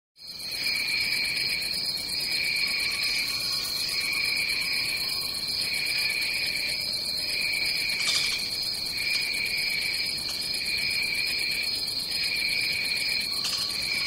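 Rainforest ambience of a dense insect chorus: a steady high shrill drone, with a lower pulsing call repeating in phrases of about a second and a half with short gaps between them. It fades in just at the start.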